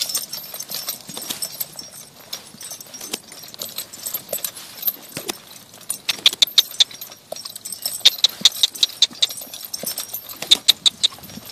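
Hoofbeats of a saddled horse trotting on a lunge line over dry dirt and grass, with its tack jingling in time. The hoofbeats grow louder and more regular from about halfway through.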